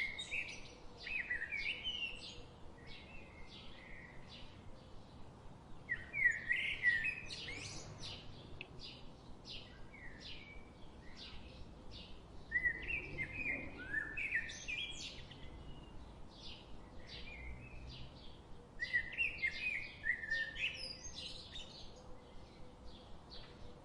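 A songbird singing: a quick warbled phrase about every six seconds, with short chirps in between.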